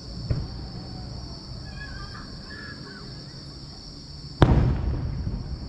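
Aerial firework shell bursting: a faint pop near the start, then a loud boom about four seconds in that echoes away over about a second.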